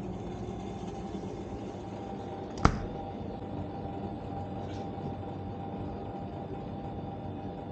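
Steady hum of refrigerated glass-door drink coolers, with a single sharp knock about two and a half seconds in while a beer can is taken from the shelf.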